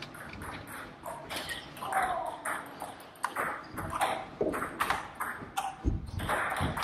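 Table tennis rally: the plastic ball clicks off the bats and the table in quick, irregular succession, with more clicks from play on the neighbouring tables.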